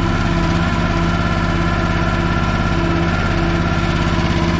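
Chinese mini excavator's small spark-ignition gasoline engine idling steadily just after a key start, with an even pulsing beat.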